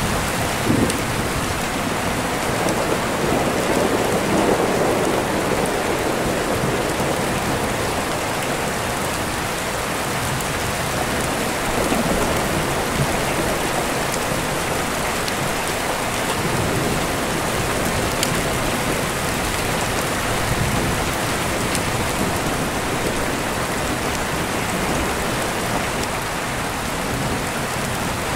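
Steady rain with deep rolling thunder rumbling underneath in several slow swells, the strongest a few seconds in.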